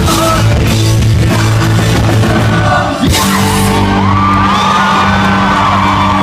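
Pop-punk band playing live with drums, guitars and vocals, hitting a final accent about three seconds in and letting a chord ring. About a second later the crowd starts screaming and cheering over it.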